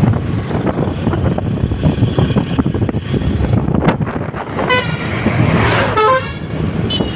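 Steady road-vehicle rumble with a vehicle horn honked briefly about two-thirds of the way in, and a second honk about a second later.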